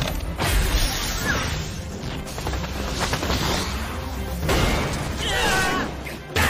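Anime battle soundtrack: background music mixed with spell and impact sound effects, with voices shouting about five seconds in.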